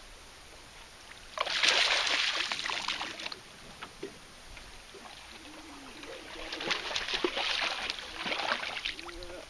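Water sloshing and splashing against the hull of a bass boat in two bursts of about two seconds, the first a little over a second in and the louder, the second from about six and a half seconds.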